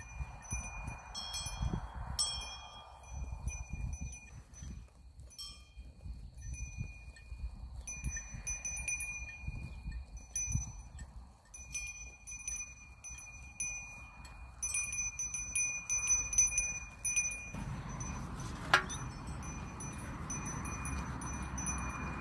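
Bells on a grazing goat herd ringing and tinkling irregularly as the goats move and feed, several clear tones over one another. In the last few seconds a steady low rumble comes in, and there is one sharp click, the loudest moment.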